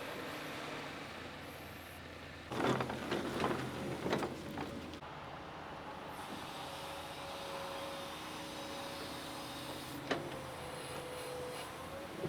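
Heavy equipment running steadily at a moderate level. A burst of clattering knocks comes about two and a half seconds in, a thin steady whine joins later, and there is one sharp knock near the end.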